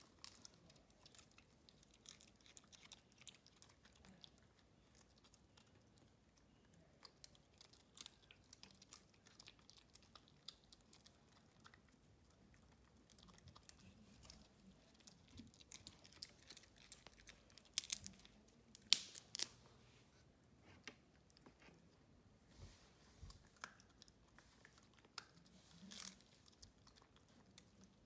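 A small dog chewing raw cabbage leaves: faint, irregular crisp crunches and tearing, with the loudest few crunches about two-thirds of the way through.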